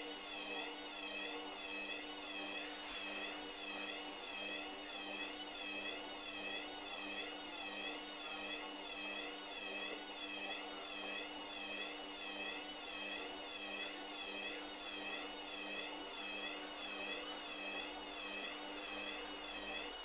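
Hoover Dynamic washing machine in its spin cycle: the drum motor gives a steady hum under a high whine that wavers regularly up and down in pitch. The sound changes right at the end.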